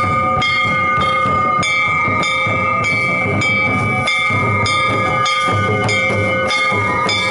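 Double-headed barrel drum (dhol) beaten with two sticks in a steady dance rhythm, about two strokes a second, with a steady high ringing tone sounding over it.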